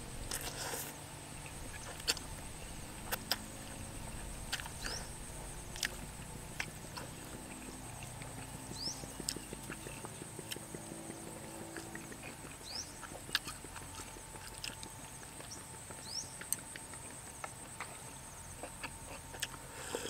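A person eating noodle soup: small chewing and slurping mouth sounds with scattered clicks of chopsticks and spoon. Behind it a steady high-pitched insect hum and a few short rising chirps.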